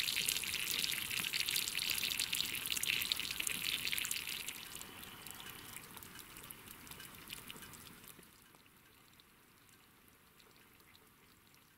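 Water dripping and trickling off a snowmobile's slush-caked track and suspension onto wet overflow ice, a dense patter that fades after about four seconds and dies away to near silence about eight seconds in.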